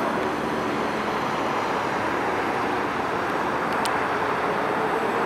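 Boeing 787-9 Dreamliner's jet engines at takeoff thrust, a steady distant roar as the airliner climbs away after takeoff. A brief high click sounds nearly four seconds in.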